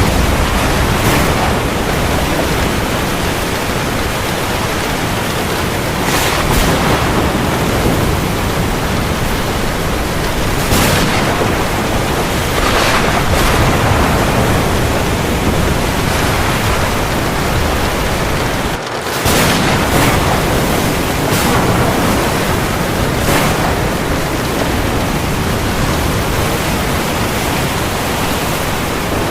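Heavy, steady rain falling on the sea, a dense hiss that swells every few seconds as waves break. It drops out for a split second about two-thirds of the way through.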